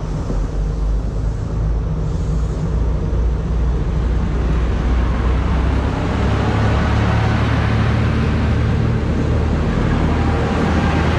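A JR Kyushu KiHa 147 diesel railcar moves off past close by, its diesel engine running with a strong low drone. A rush of wheel and rail noise builds toward the end.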